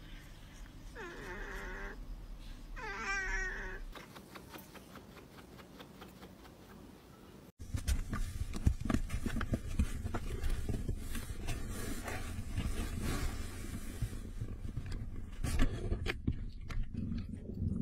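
A cat meows twice, each call about a second long. About halfway through this gives way to a louder, close rustling and scratching noise with a low rumble and many sharp clicks.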